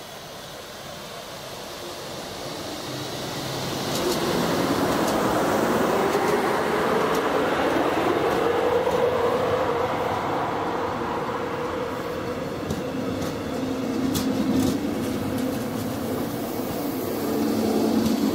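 A DB class 111 electric locomotive and its double-deck coaches running past along the platform, growing louder over the first few seconds as the locomotive approaches. A steady rumble carries a whining tone that rises and then holds, with a few sharp clicks of wheels over rail joints in the second half.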